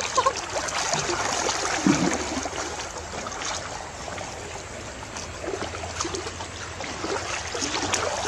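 River water sloshing and swishing steadily as people wade through it waist-deep.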